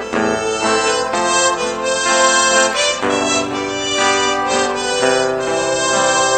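Instrumental background music: a melody of held notes over chords.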